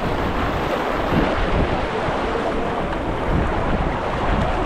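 River water rushing and splashing around a moving raft on the Ganges, with wind buffeting the microphone.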